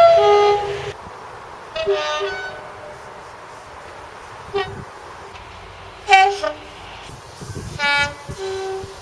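A run of about five short two-tone train horn blasts, each stepping between a higher and a lower note, the first and last the longest.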